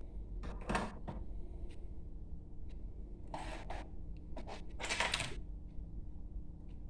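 Soldering work at an electronics bench: three short hissy rustles about half a second each, at the start, in the middle and about five seconds in, with a few light clicks over a steady low hum.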